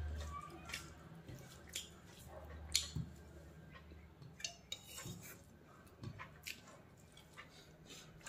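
Faint, irregular clicks and soft squishes of eating by hand: fingers mixing rice and chicken liver on a plate, with chewing.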